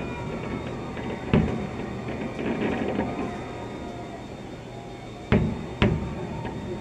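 Fireworks shells bursting, heard from indoors through a window: three sharp bangs, one about a second and a half in and two close together near the end.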